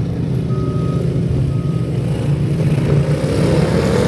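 Several racing lawn mower engines running together at speed, rising in pitch and getting a little louder about halfway through as the mowers accelerate down the straight. A faint beeping repeats about once a second in the first couple of seconds.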